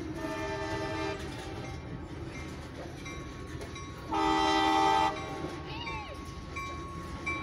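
Diesel freight locomotive's air horn sounding a chord of several notes at once: a softer blast lasting about a second at the start, then a louder, roughly one-second blast about four seconds in, over a steady low rumble.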